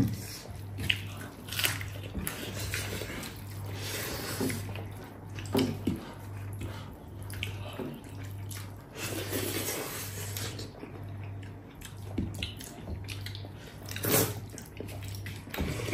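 Wet eating sounds: chewing, smacking and slurping of rice mixed with pork trotter gravy and gundruk soup, in irregular short bursts. A faint low hum pulses on and off underneath.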